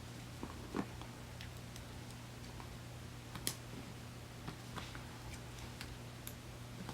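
Faint, scattered clicks and taps of paper sticker sheets and planner pages being handled as stickers are peeled and pressed down, over a steady low hum.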